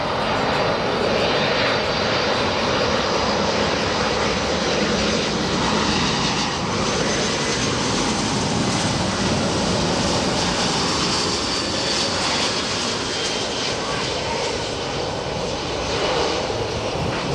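A fixed-wing aircraft's engines running loud and steady, a dense rushing noise with a faint high whine over it.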